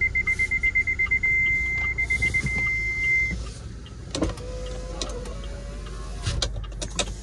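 Car parking-sensor warning from an MG car: a high beep repeating fast, merging into a solid tone, briefly beeping again and then holding a solid tone before it stops about three seconds in, the sign of an obstacle very close. A few clicks and a short hum follow.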